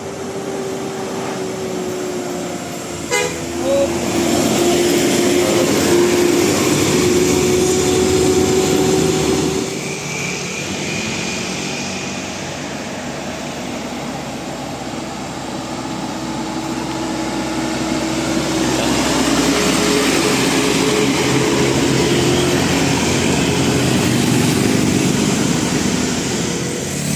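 Bus telolet horn sounding long held notes over engine and road noise: one note for the first third or so, then another from a little past halfway until near the end.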